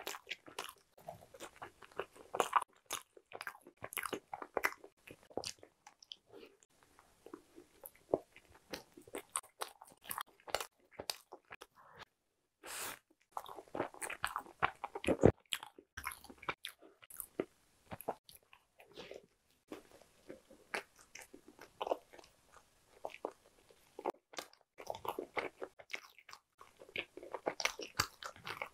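Close-miked chewing of a soft steamed bun, with irregular mouth clicks and smacks in spells and a short pause a little before halfway.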